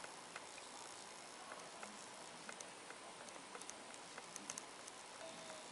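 Faint small clicks and ticks of a precision screwdriver turning a tiny screw into a Z-scale model locomotive chassis, irregular and bunched together a little past the middle, over a steady hiss.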